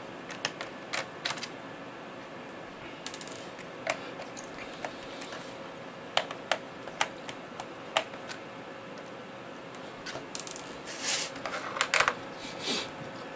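Light, irregular clicks and ticks of a small screwdriver turning out screws from the plastic bottom case of a Lenovo 80XV laptop. The clicks come a little louder and closer together near the end.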